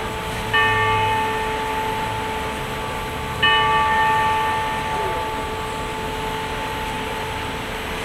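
Clock-tower bell of the Wako building striking the hour: two strokes about three seconds apart, each ringing on and slowly fading. Street traffic hums underneath.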